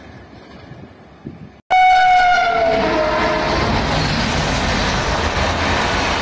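A train's rolling wheel noise, then after a sudden cut a loud train horn blast whose pitch sags slightly over about a second and a half, fading into the steady rumble of an approaching train.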